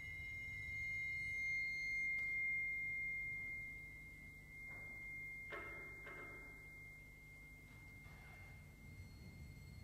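A single high, pure ringing tone held steadily, swelling in the first few seconds and then softening, with fainter overtones that die away early. It comes from the ensemble's metal percussion in a contemporary piece for brass and percussion. A few brief, soft, airy noises come in around the middle.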